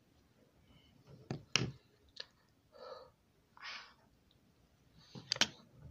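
Sharp clicks and knocks of a small makeup tube and other makeup items being handled, capped and set down, about four in all and the loudest near the end. Two short breathy sounds fall in between.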